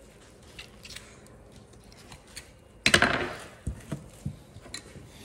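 Knife and raw deer meat being worked on a wooden cutting board: scattered small clicks and taps, with one louder, short burst of noise about three seconds in followed by a few dull knocks.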